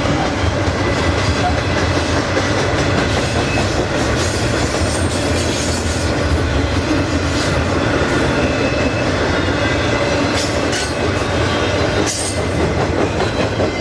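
Freight cars of a garbage train rolling past on the rails with a steady rumble of wheels on track. A few sharp clanks come near the end.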